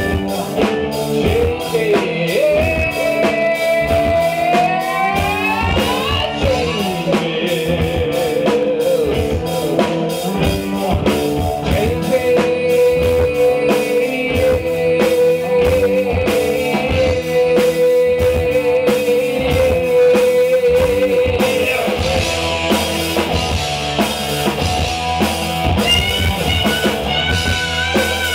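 Live rock band playing: a singer over electric guitars and drum kit, with a rising glide a few seconds in and one long held note through the middle.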